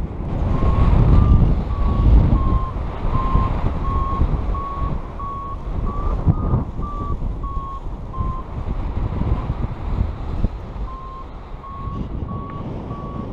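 A paragliding variometer beeping in short tones about one and a half times a second, its pitch wavering slightly, signalling that the glider is climbing in lift; the beeps stop for a moment and then resume. Airflow buffets the microphone throughout.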